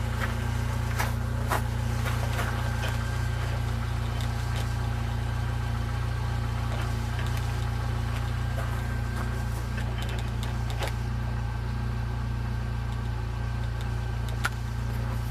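Jeep Wrangler's 2.5-litre four-cylinder engine idling steadily, with a few light clicks and knocks as weld cable connectors are pushed into the welding panel.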